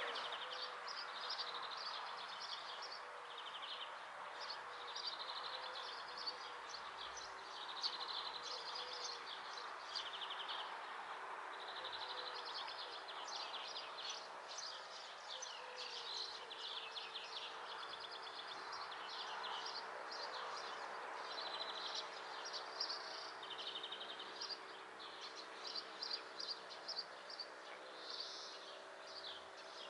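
Small songbirds singing continuously in high twittering phrases and rapid trills, over a steady background of noise and a faint low hum.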